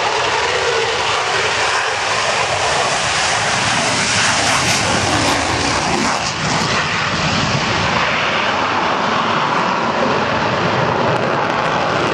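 Aircraft engine noise from a landed display aircraft rolling out along the runway after braking: a steady, loud, dense rush with no clear pitch.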